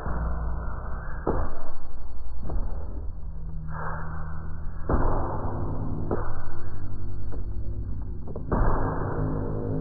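Synthesized emergency-alert sound: bursts of harsh static that start abruptly about every second, some with a sweep, over low droning tones and a faint steady high whine.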